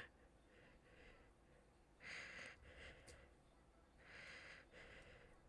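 Faint, heavy breathing close to a microphone: a few soft puffs of breath, about two seconds in and again near four seconds.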